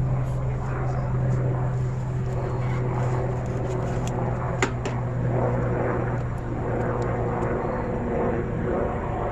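Steady engine-like drone with a pitched hum that fades away about seven and a half seconds in, and a single sharp click about halfway through.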